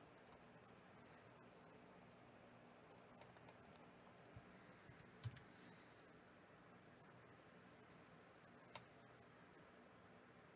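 Near silence with faint computer mouse and keyboard clicks, many coming in quick pairs. A louder click with a dull knock comes about halfway through, and another sharp click near the end.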